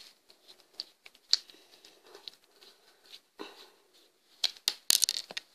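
Small screwdriver working a tiny screw out of a camera lens module: scattered light clicks and scrapes of metal and plastic, with a quick cluster of sharper clicks near the end.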